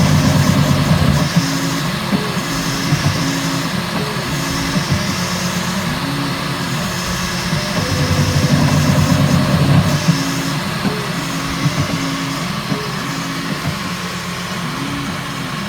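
Bambu Lab X1 Carbon 3D printer running a print: its stepper motors whine in low tones that step and glide up and down as the print head moves, over a steady hiss.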